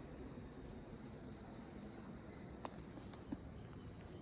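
Steady high-pitched insect chorus droning without a break, with a couple of faint clicks in the middle.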